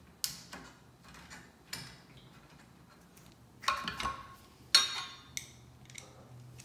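Scattered metal clicks and knocks as bolts are handled and set by hand into the metal foot pieces of a Concept2 Model D rowing machine, with the loudest knock a little under five seconds in.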